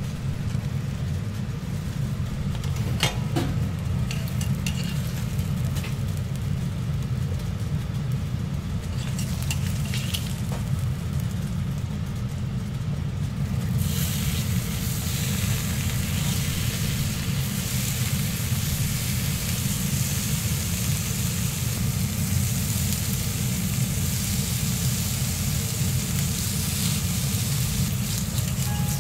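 A steady low hum with a few faint clicks, then, about halfway through, sizzling starts as bacon strips are laid on a hot flat-top griddle and keeps on as they fry.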